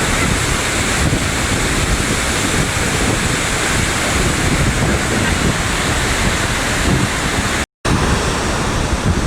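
Rupse Falls' water pouring in a loud, steady rush, with wind buffeting the microphone. The sound drops out for an instant about three-quarters of the way through.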